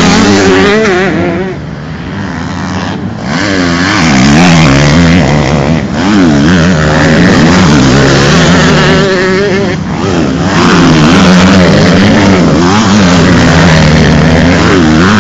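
Several 125 cc two-stroke motocross bikes racing past, loud, their engines revving with the pitch repeatedly rising and falling. The sound dips briefly about two seconds in.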